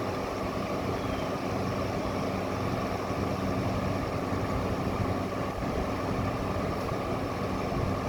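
General Electric 6,000 BTU wall air conditioner running on its fan alone: a steady rush of air over a low, even motor hum. The compressor has cycled off, its coil frozen up.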